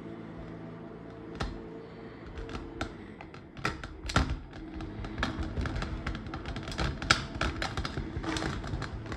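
Quick, irregular clicks and taps as kinetic sand is packed into a small drinking glass with a wooden tamper, with the glass and sand knocking on a stainless steel tray. The clicks are sparse at first and come thick and fast from about three and a half seconds in, over a steady low hum.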